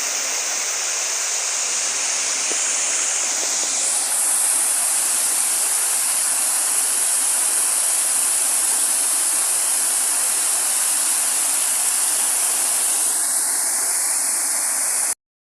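Water rushing steadily with a hiss. It grows slightly louder about four seconds in and cuts off abruptly near the end.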